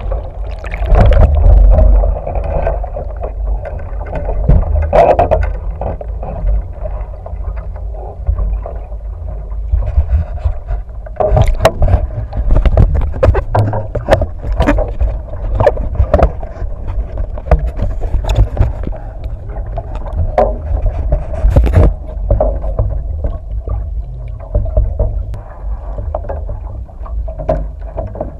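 Water churning and rumbling around a capsized 49er skiff, heard muffled through an underwater action camera. Many sharp knocks and clicks, thickest in the middle, come from the hull, mast and rigging being moved about in the water.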